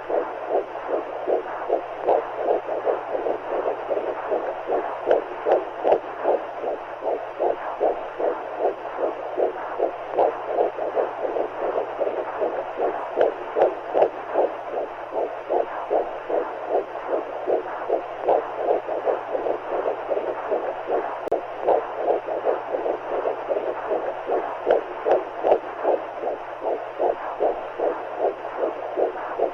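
Womb sound for soothing a baby: a heartbeat pulsing evenly in a whooshing noise, about two to three pulses a second, over a faint steady hum. It is meant as the mother's and baby's heartbeats mixed with the sound of amniotic fluid.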